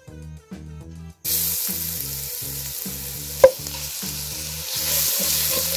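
Crushed garlic dropping into hot oil in a wok and sizzling loudly from about a second in, stirred with a wooden spatula. A single sharp knock about three and a half seconds in is the loudest moment.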